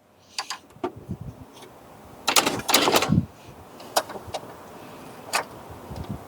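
Hands-on work on a motorcycle's electrics: scattered sharp clicks and knocks, with a longer scraping clatter about two and a half seconds in.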